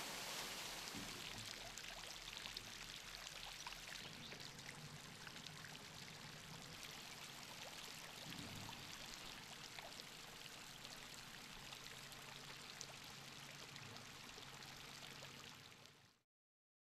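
Spring water pouring and splashing steadily, easing about four seconds in to a lighter splashing with scattered small drips, like a thin fountain jet falling into a stone basin; the sound cuts off abruptly near the end.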